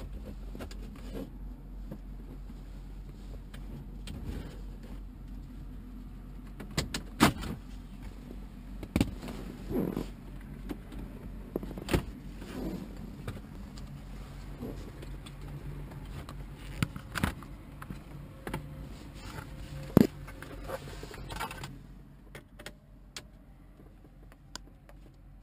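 Plastic radio trim bezel on a 2011 Jeep Compass dash being pried and pulled off: a scattered run of sharp clicks and snaps as its retaining clips let go, with jingling and rattling, over a steady low hum. The clicks thin out near the end.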